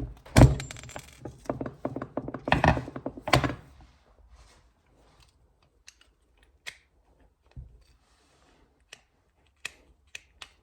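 Knocks and clicks of metal parts and tools being handled while fitting a footpeg mounting block: several loud knocks in the first few seconds, then scattered light clicks.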